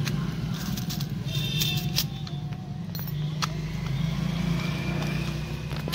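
Small metal crimp terminals clicking in a plastic box as a hand picks through them, with scattered sharp clicks. Under them runs a steady low mechanical hum.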